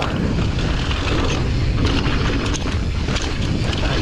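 Mountain bike rolling fast down a dirt trail, with wind rumbling on the microphone and tyre noise, and scattered short rattles and knocks from the bike over the bumps.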